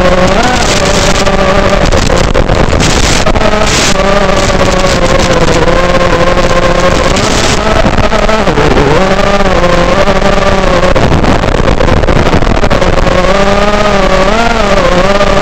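Realacc X210 FPV racing quadcopter's motors and propellers whining in flight, the pitch rising and falling with the throttle, with a deep dip about eight and a half seconds in.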